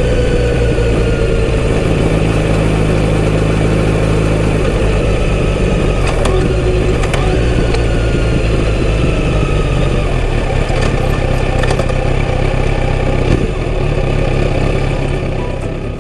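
Kawasaki Z900RS inline-four engine running through its stock full exhaust system while riding. The note eases down in the first second, then runs steady, with a few light clicks, and fades near the end.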